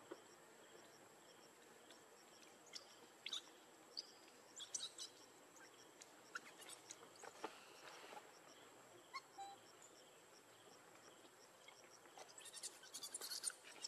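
Faint outdoor ambience under a steady high-pitched tone, with scattered short chirps and clicks and a quick flurry of chirps near the end.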